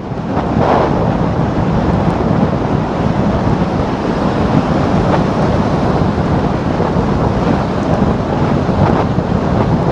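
Loud, steady wind noise buffeting the microphone of a Garmin Virb XE action camera on a scooter riding at about 60 km/h.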